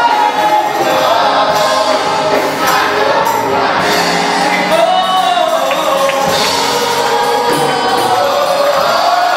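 A congregation singing a gospel worship song together, many voices over music, at a steady loud level.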